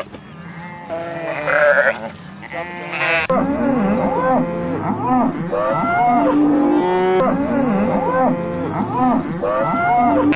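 Several cattle mooing, their calls overlapping one another. A few separate calls come first, and after about three seconds a steady chorus of moos begins.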